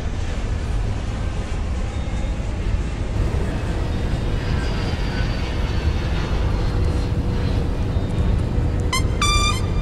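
Steady low rumble of cabin noise inside a jet airliner descending with its flaps out, with a faint high whine. Near the end, trumpet music cuts in with quick rising notes.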